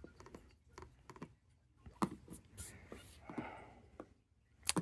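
Faint handling noise: scattered light clicks, taps and a soft rustle, as of packaging being handled, with a sharper click near the end.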